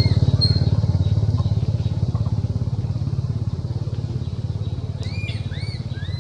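An engine running steadily, a low even rumble that eases slightly. A few short rising-and-falling chirps about five seconds in.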